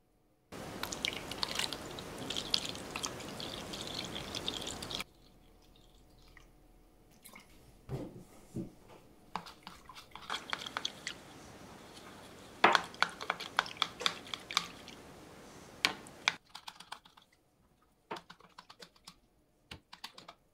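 Water pouring from a jug into a plastic bowl for about four and a half seconds, stopping abruptly, then a brush swishing and scrubbing in the water with sharp clicks and knocks against the bowl.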